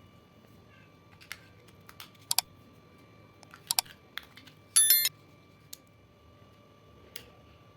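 Scattered sharp clicks and taps from small hard plastic parts being handled, some in pairs, with a louder, brief rattle about five seconds in.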